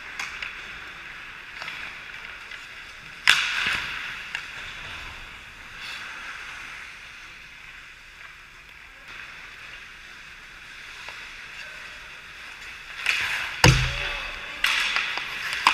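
Ice hockey game sounds on a rink: skate blades scraping and carving the ice with a steady hiss of play, a sharp clack about three seconds in, and a loud heavy thump near the end as the goalie drops to block a shot, with a flurry of skate scrapes around the net.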